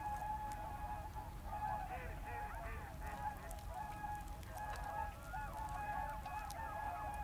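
A flock of water birds calling, with many short calls overlapping continuously over a low, steady background rumble.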